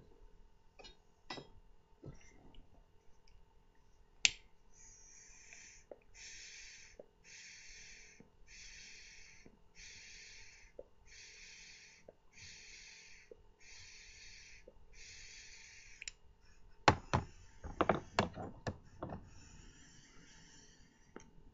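A single sharp click, then a pipe smoker puffing rhythmically on a London Made Kaywoodie briar pipe to light the tobacco: about a dozen short airy draws, a little under a second apart. A cluster of sharp clicks and knocks follows near the end.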